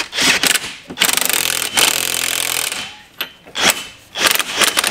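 Cordless impact wrench hammering on a tie-rod end nut in several bursts, the longest about a second and a half. The tie-rod ball stud tends to spin with the nut under the impact rather than tighten.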